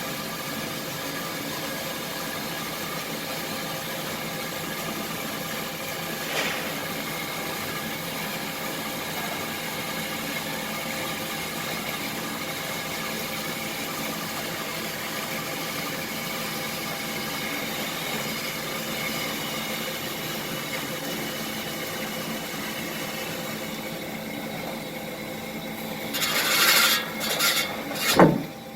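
Hyd-Mech H-22A automatic horizontal band saw running steadily, its blade sawing through stock with a constant multi-tone hum. Near the end come a few loud, short, noisy bursts and a sharp knock.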